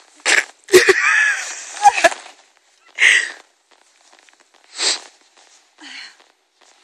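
Western saddle being lifted and swung onto a horse's back: two knocks about a second apart with rustling between them, followed by a few short breathy sounds.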